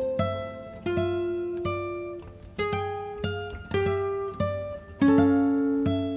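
Background music: a plucked acoustic guitar playing a slow melody of single ringing notes over a low bass.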